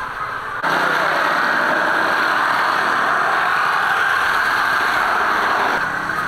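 A motor running steadily and loudly, cutting in sharply about half a second in and stopping abruptly near the end.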